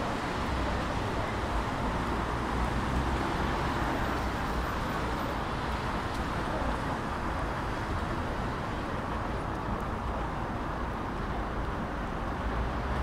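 Steady city street ambience, dominated by the even rush of road traffic with a low rumble.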